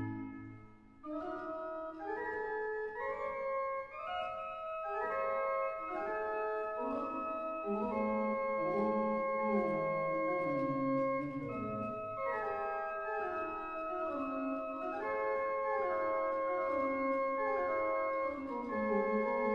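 Slow instrumental background music in long held chords and slowly moving lines. A new passage begins about a second in, just after a loud held chord cuts off.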